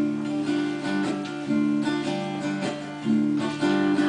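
Acoustic guitar strummed in chords, with no singing yet: the instrumental lead-in to a song.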